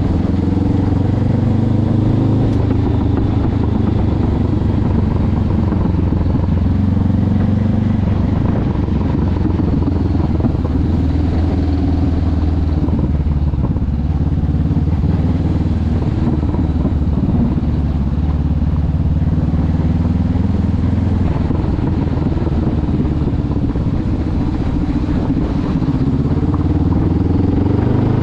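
Honda CB500X's parallel-twin engine running under way, its pitch rising and falling again and again with throttle and gear changes.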